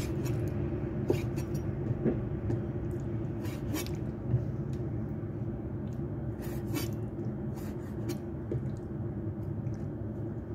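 Cleaver slicing raw beef into thin strips on a wooden chopping board: scattered light knocks and scrapes of the blade against the board, over a steady low hum.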